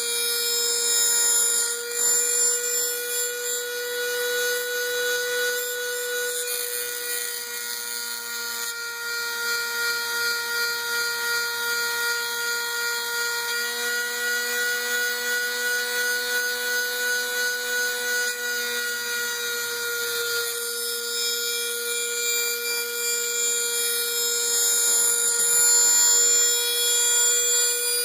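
Dremel rotary tool on a RepRap Prusa i3 CNC conversion, running with a steady high whine as it routes pine; the pitch shifts slightly a few times.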